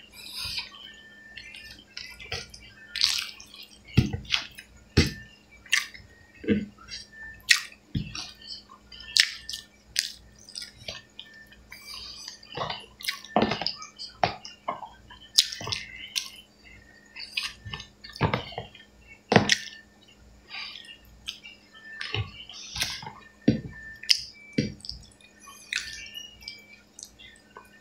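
Close-up eating sounds of a person eating rice and pork by hand: wet chewing and lip smacks, heard as a long run of irregular sharp clicks and smacks, over a faint steady hum.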